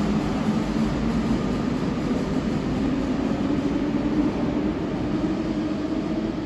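RER B electric multiple unit running away from the platform into the tunnel, a steady low motor and wheel hum that starts to fade near the end.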